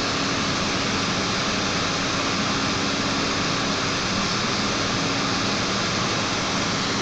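Desktop computer's cooling fans running, a steady rush of air with a faint constant hum underneath.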